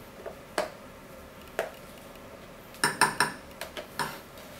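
Fork clicking and scraping against a plastic tub and plate as mashed kale-and-potato stamppot is worked out onto the plate: a couple of single clicks, then a quick cluster of several about three seconds in and a few more near the end.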